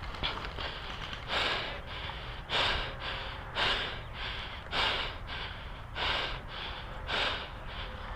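A person breathing hard close to the microphone, with loud noisy breaths about once a second.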